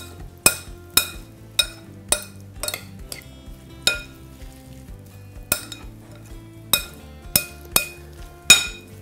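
Metal spoon stirring a chopped salad mixture in a glass bowl, clinking against the glass in sharp, briefly ringing strikes, irregular at about one or two a second with a pause in the middle.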